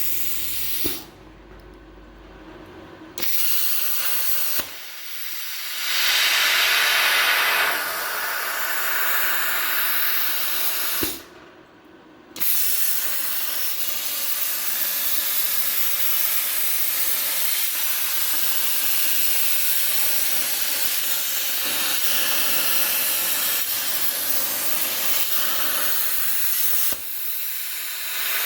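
Herocut 55X air plasma cutter on a CNC table cutting: a loud steady hiss of the arc and air stream. It stops twice for a second or two between cuts and restarts with a sharp click.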